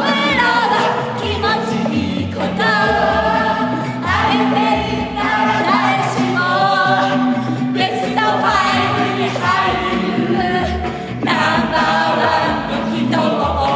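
A mixed group of men and women singing a song together in chorus.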